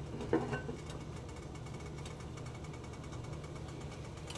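A glass lid clinks once as it settles onto a cast iron skillet, then a steady low hum with faint light ticks follows while the covered pan simmers.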